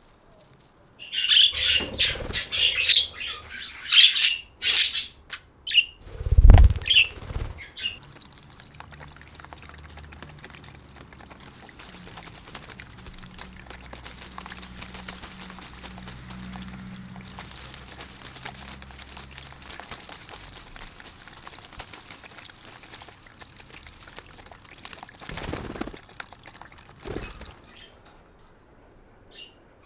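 Budgerigars chirping rapidly and flapping their wings, busiest in the first several seconds, with one heavy thump about six seconds in. Quieter sounds follow, with a couple more brief flurries near the end.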